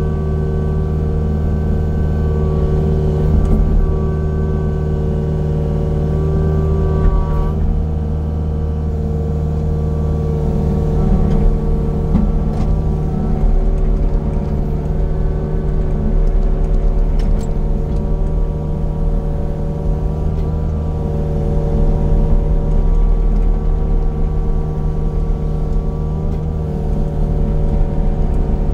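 Heavy land-clearing machine's engine running steadily under load, its pitch dipping slightly about seven seconds in, with a few brief sharp cracks or clicks over it.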